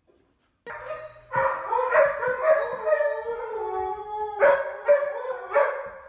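A dog howling in long, wavering notes that bend up and down in pitch, starting about a second in and pausing briefly about four and a half seconds in.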